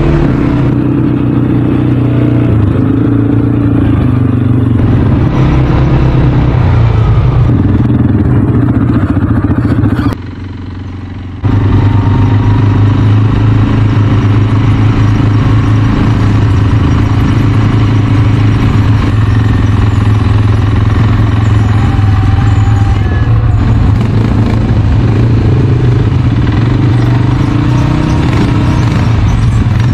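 ATV engine running steadily under way, heard close up from the quad bike itself. The sound drops away for about a second and a half about ten seconds in, then carries on.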